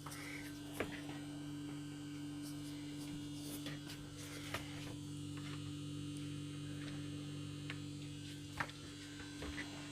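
A steady low electrical hum, with a few faint clicks scattered through it.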